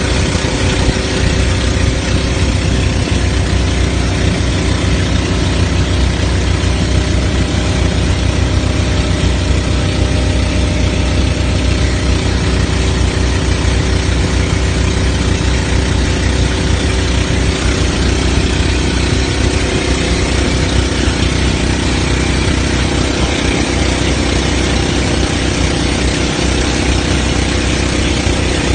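Outrigger boat's engine running steadily while underway, a constant low drone with a rush of water and wind over it.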